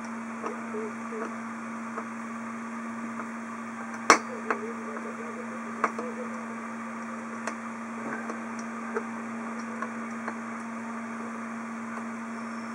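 Screwdriver driving a 3 mm screw into a freshly threaded hole in an aluminium heatsink: a few small clicks and ticks, with one sharper click about four seconds in. A steady hum runs underneath.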